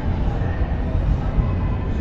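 Steady low rumble with a general haze of noise from a busy indoor exhibit hall, with no distinct event standing out.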